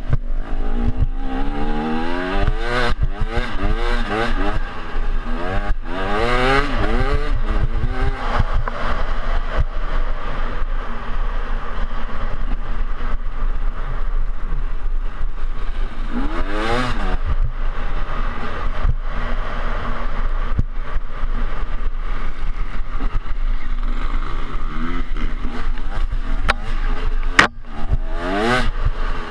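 Off-road dirt bike engine revving hard and falling away again and again as the rider throttles through the gears over rough ground, with a steady low wind rumble on the microphone. A sharp knock sounds near the end.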